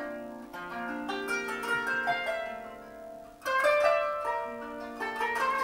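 Kanun, the Turkish plucked zither, played solo: a run of plucked, ringing notes that dies away, then a sudden louder cluster of notes about three and a half seconds in.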